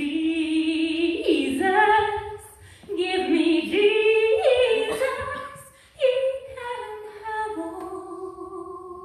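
A woman singing solo and unaccompanied into a handheld microphone, in long, slow held notes. Her phrases break briefly about three and six seconds in, and the last note is held to the end.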